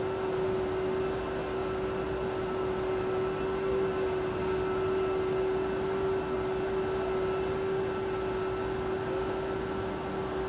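A steady single-pitched hum that holds one note throughout, over a constant background hiss.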